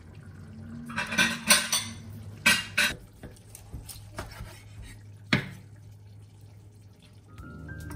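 Kitchen tableware clinking and clattering: a quick run of knocks about a second in, a few more scattered ones, and a single sharp knock past the five-second mark.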